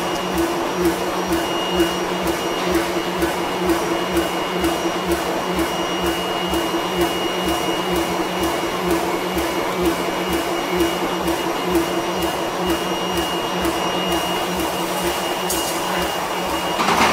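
Ring rolling mill running as it forms a red-hot steel ring between its rotating dies: a steady mechanical drone with a high whine and a fast, regular pulsing.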